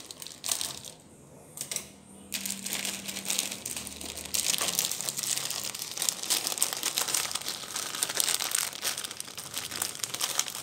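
Plastic wrapper of an instant-noodle packet crinkling as it is cut open and handled: after a quieter first two seconds, a dense continuous run of fine crackles.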